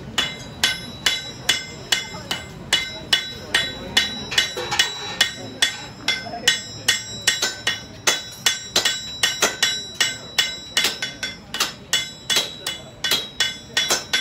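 Farrier's hammer striking a steel horseshoe in a steady run of about two blows a second, each blow ringing metallically.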